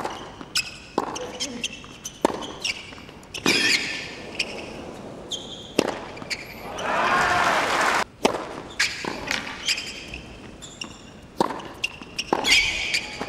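Tennis point on a hard court: sharp racquet strikes and ball bounces in a rally, followed about halfway through by a burst of crowd applause and cheering lasting a second or two as the point ends. Scattered ball bounces and strikes follow as play resumes.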